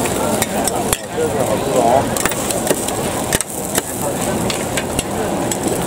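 Metal spatula and scraper clicking and scraping on a large flat griddle as oyster omelettes are cut into portions, over frying food, with sharp metal clicks scattered through.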